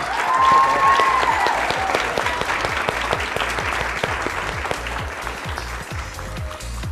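Crowd applauding, with a single high cheer rising and falling in the first second, over background music with a steady low beat. The clapping thins toward the end.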